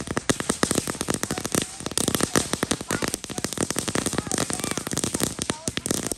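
Ground firework fountain spraying sparks, with a dense, continuous run of rapid crackling pops.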